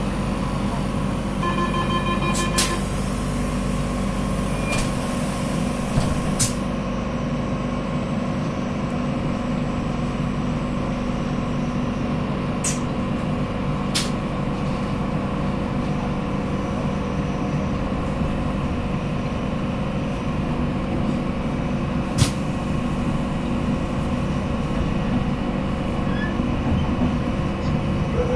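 Electric commuter train heard from inside the carriage: a steady running hum and rumble. A short run of beeps comes about two seconds in, and sharp clicks occur now and then.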